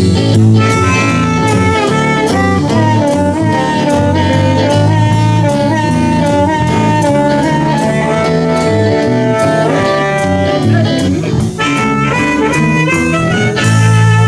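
Live blues band playing an instrumental shuffle, with a saxophone lead of long, bending notes over electric guitar, bass and drums.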